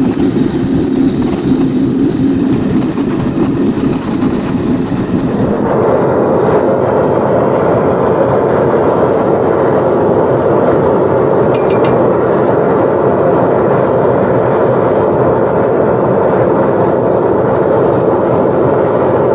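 A propane torch flame runs with a steady low rush while heating ingot molds; about five seconds in it changes to the steady, higher-pitched rush of a propane-fired Devil Forge melting furnace burner running at full heat.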